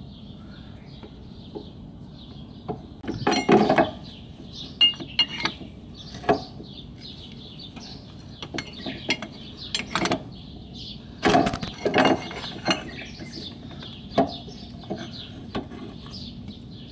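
Irregular metal clinks and knocks of a steel bar and the metal brake piston against the brake caliper as the piston is worked into its bore, with two busier bursts of clatter about three seconds in and again near eleven seconds. Birds chirp steadily in the background.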